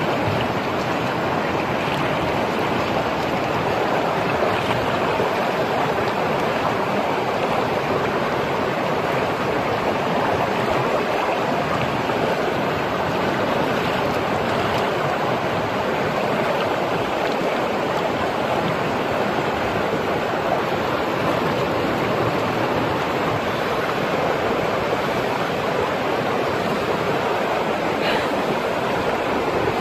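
Fast-flowing river rapids rushing steadily past, an even wash of water noise that does not change.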